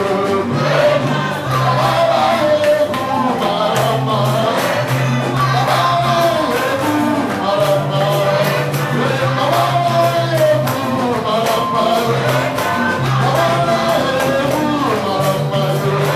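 Live gospel praise song: several voices singing over a band, with sustained bass notes and a steady beat.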